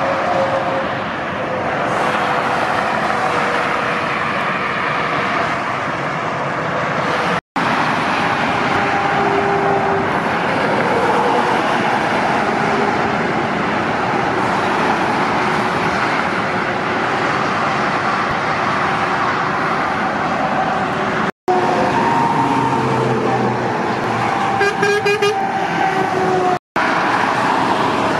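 Motorway traffic: heavy trucks and cars passing at speed, a steady wash of tyre and engine noise, with a short truck horn sounding near the end. The sound breaks off for an instant three times where clips are joined.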